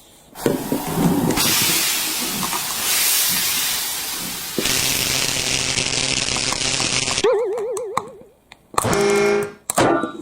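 A toy train's steam hiss sound effect, lasting several seconds, with a steady hum joining partway through. Near the end come a short warbling tone and then a brief horn-like tone.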